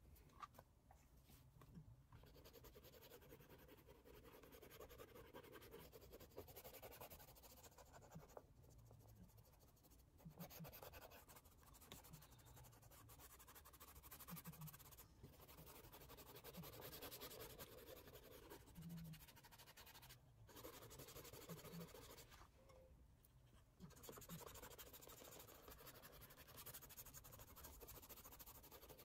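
Faint scratchy rubbing of a cotton swab blending oil pastel on paper, in stretches of strokes broken by short pauses.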